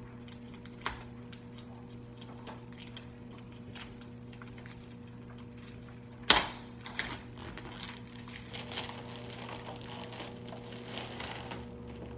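Protective plastic film being worked off the lid of a Cricut Maker cutting machine: a sharp knock about six seconds in, then light crackling of the film as it is handled and peeled.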